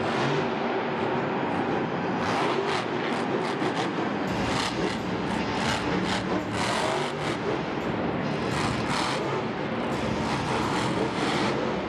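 Monster truck engine running, with repeated short, loud surges.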